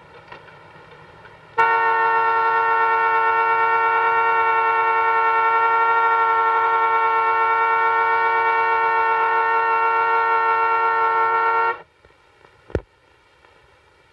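Car horn sounding one steady, unbroken note for about ten seconds, held down by a man's body slumped against the steering wheel. It starts suddenly and cuts off abruptly, and a single sharp knock follows a second later.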